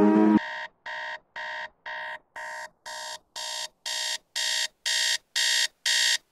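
A held musical chord cuts off just after the start. Then a digital alarm clock beeps about twice a second, each beep a short buzzy electronic tone, getting steadily louder.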